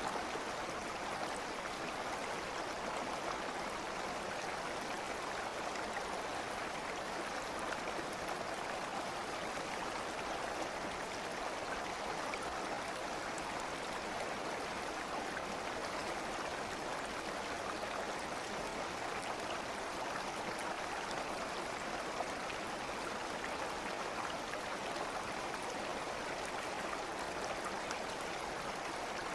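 A stream of running water flowing steadily, an even rushing sound with no breaks.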